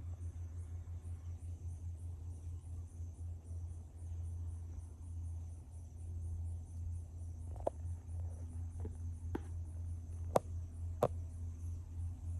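Insect, cricket-like, chirping high and faint in an even pulse of about four beats a second, over a steady low rumble. A few sharp clicks come in the second half, the two loudest near the end.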